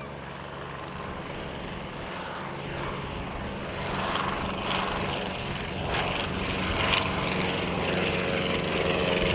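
Replica SE5A biplane's piston engine and propeller droning in flight, growing steadily louder as the aircraft comes closer overhead.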